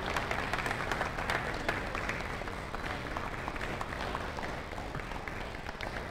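A small crowd clapping, the claps thinning out and growing a little quieter toward the end.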